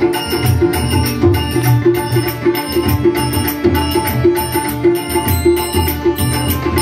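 Instrumental interlude of a Marathi bhajan: tabla played in a brisk, steady rhythm with pakhawaj, over sustained harmonium notes, with small hand cymbals ringing along.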